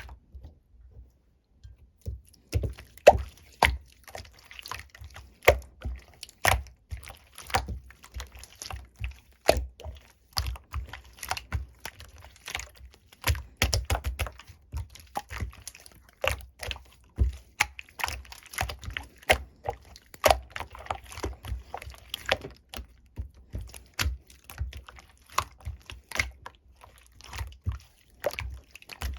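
Slime being squeezed and pressed by hand, making rapid wet clicks and pops that start about two seconds in.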